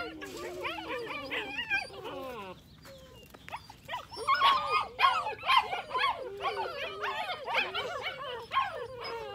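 Young puppies whining and yelping in overlapping high-pitched cries, with a short lull a few seconds in before they grow louder again.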